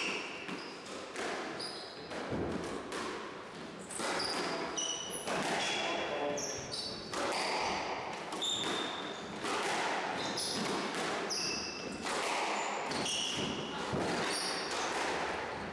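Squash rally: the ball is struck by rackets and smacks off the walls in a run of sharp hits about once a second, with short high squeaks of court shoes on the wooden floor between them.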